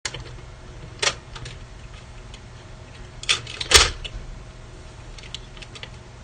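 Irregular clicks and knocks of plastic and metal parts being handled inside an opened DJ mixer, a handful of sharp ones with the loudest knock a little before halfway, then a few faint ticks, over a steady low hum.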